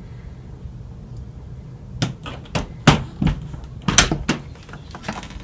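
A run of about seven sharp knocks and thumps, irregularly spaced, starting about two seconds in and stopping near the end.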